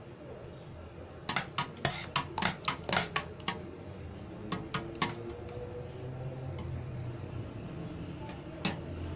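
A spoon clinking against the side of a stainless steel bowl while stirring a thick cream: a quick run of clinks, about five a second, starting about a second in, a few more around five seconds in, and one last clink near the end.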